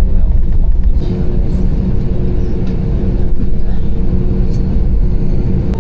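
Loud, steady rumble of an airliner heard inside the cabin, with a steady engine hum that sets in about a second in.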